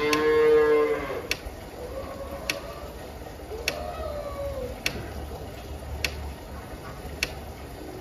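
Cattle mooing: one loud, long moo at the start, then fainter moos that fall in pitch. Through it all a sharp tick repeats about every second and a bit.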